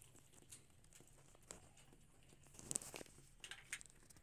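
Near silence: faint room tone with a few scattered clicks and rustles, and a brief louder rustle a little past the middle.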